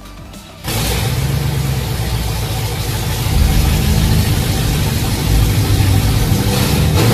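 Engine of a 1981 4x4 van with headers and a new four-barrel carburetor, running loud. It cuts in suddenly just over half a second in and gets somewhat louder a few seconds later.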